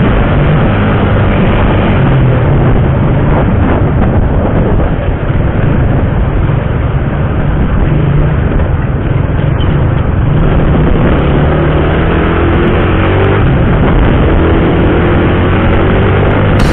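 A motorcycle engine running under way, mixed with a dense rush of wind and road noise; the engine note climbs in the last few seconds as it speeds up.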